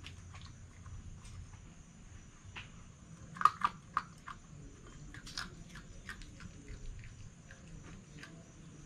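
Red fox eating from a dish: irregular crunching and clicking of chewing, loudest in a cluster of sharp crunches about three and a half seconds in.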